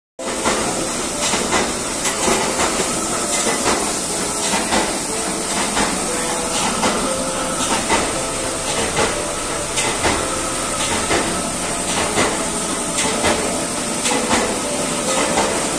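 Rotary screw air compressor running: a loud, steady hiss with a steady tone in it, and scattered irregular clicks and knocks.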